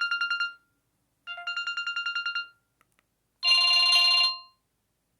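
Samsung M1200M mobile phone playing a ringtone: two short bursts of rapid trilling beeps, then a brighter buzzing chord about a second long, with short pauses between.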